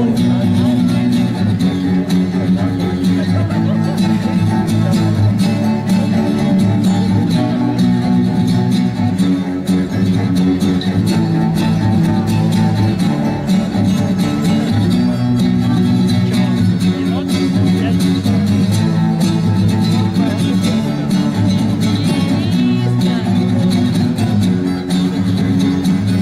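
Indie-rock band playing live: an instrumental passage led by guitars, steady and loud, with no singing.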